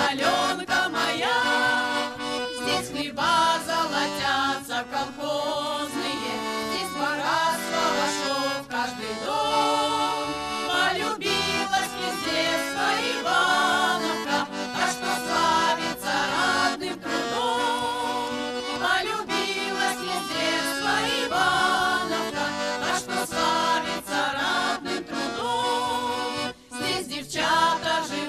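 Folk choir singing a Russian folk song together, with steady held instrumental notes under the voices.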